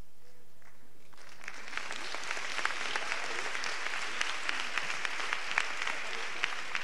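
Audience applause, many people clapping together, beginning about a second in and going on steadily.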